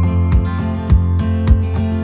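Background music with a steady beat, acoustic guitar strumming among the instruments.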